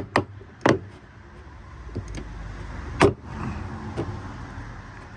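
Sharp metallic clicks and knocks from needle-nose pliers working the detached latch rod inside a Chevy Avalanche tailgate, trying to pull it to release a broken tailgate latch: three quick clicks at the start, a louder one about three seconds in and a fainter one near four seconds.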